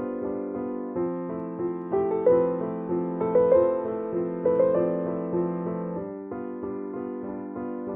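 Background piano music: a slow, gentle melody with sustained chords, new notes struck about once a second.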